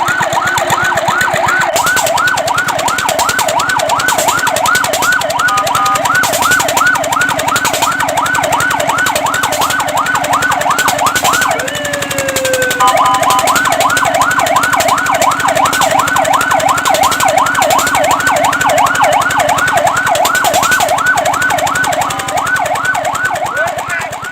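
Fire truck siren sounding a fast yelp, rising and falling about four times a second. About halfway it breaks into one slower sweep, then the rapid yelp resumes.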